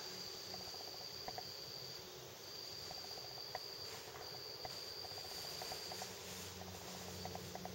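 Crickets chirping faintly in trains of rapid pulses over a high steady whine that breaks off twice, with a few light clicks.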